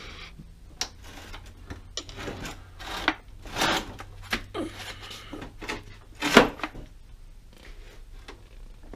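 A cast-iron lathe apron being rolled over on the steel rods run through it: a series of metal clunks, knocks and scrapes, the loudest knock about six seconds in.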